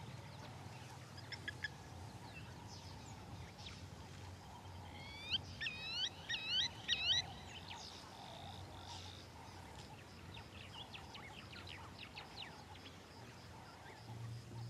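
Faint savanna ambience with birds calling: a quick run of rising-then-falling chirps about five seconds in, and scattered faint high calls and ticks, over a low steady hum.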